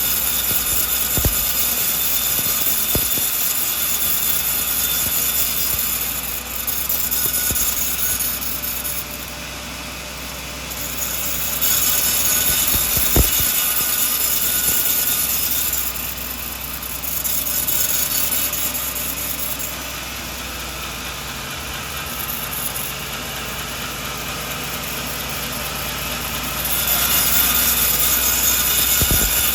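Sawmill running, its saw cutting through a coconut log, with the machine sound dipping and rising several times and a few sharp knocks.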